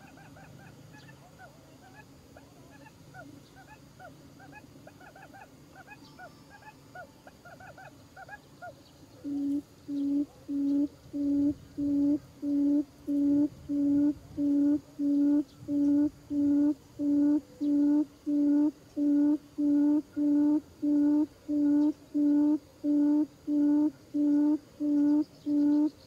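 Buttonquail lure call for a quail trap: a low hoot repeated evenly about twice a second, starting about nine seconds in. Before it there are only faint scattered bird chirps.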